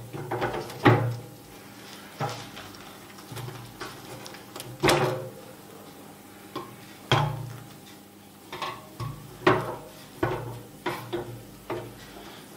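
Wooden honey frames knocking and clattering against the stainless-steel drum and wire frame cage of a three-frame honey extractor as they are lifted out and turned around. Scattered sharp knocks and bumps come every second or so.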